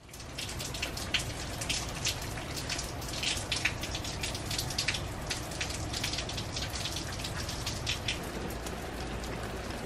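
Steady rain falling, with many individual drops striking close by as sharp ticks over an even hiss and a low steady rumble underneath.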